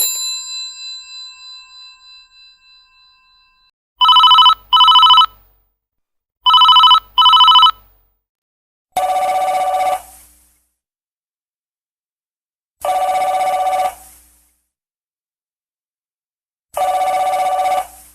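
Old telephone ringtones one after another. A previous ring fades out, then one phone rings twice in a double-ring pattern (two short rings together, two times). Then a different telephone rings in single long rings about four seconds apart, three times.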